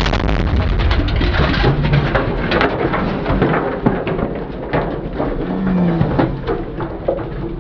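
Crowd of men shouting and calling out around carbide-fired milk churns, just after a shot. Scattered sharp bangs and knocks run through it, from other carbide churns going off and the metal churns being handled.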